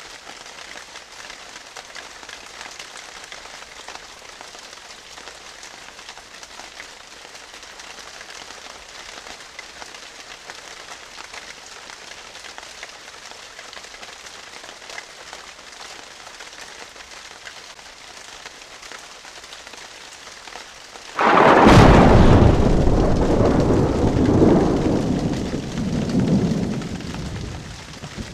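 Steady rain hiss, then about 21 seconds in a sudden loud thunderclap that dies away over about six seconds, back to the rain.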